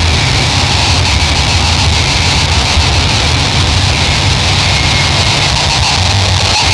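Harsh noise music made with analog synthesizer and fuzz and distortion pedals: a loud, unbroken wall of distorted noise with a heavy low rumble underneath.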